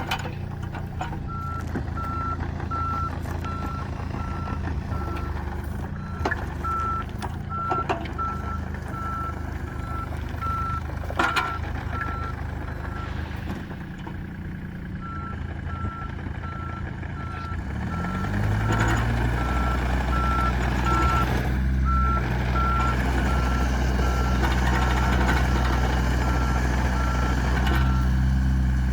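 Komatsu PC30MR-3 mini excavator's diesel engine running while its travel alarm beeps repeatedly on one high tone, pausing briefly about halfway through. A few sharp knocks come in the first half, and about two-thirds in the engine revs up and runs louder under load.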